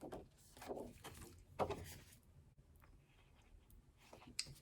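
Quiet handling of album packaging and inserts: a few brief paper and cardboard rustles and light taps, the loudest about one and a half seconds in.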